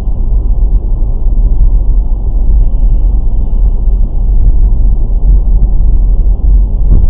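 Steady low rumble of a car's road and engine noise as heard inside the cabin by a dashcam microphone while driving. A short sharp knock comes just before the end.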